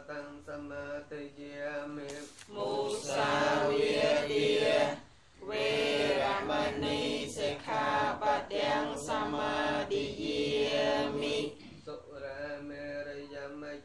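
A group of voices chanting a Pali Buddhist text in unison on a near-steady recitation pitch. It swells louder a couple of seconds in, breaks for a breath around the middle and softens near the end.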